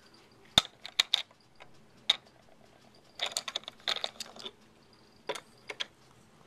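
Toy train engines knocking and clacking against a wooden railway track as a child handles them: a few sharp knocks in the first two seconds, a quick run of rattling clicks about three seconds in, then two more clicks.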